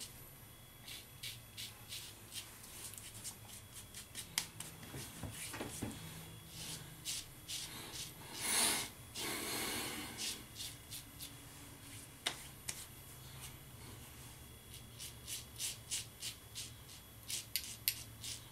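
A double-edge safety razor (Occam's Razor Enhanced-Nano) scraping stubble through shaving-cream lather: short scratchy strokes in quick runs. A longer, louder rush of noise comes about eight and a half seconds in.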